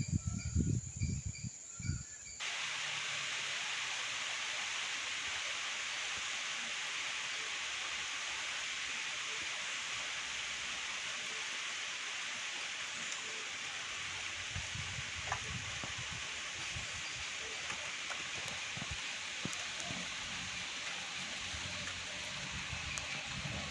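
Steady rain falling on garden foliage, an even hiss with the odd faint drip. It starts abruptly about two and a half seconds in, cutting off an insect's evenly pulsing chirp and a low rumble.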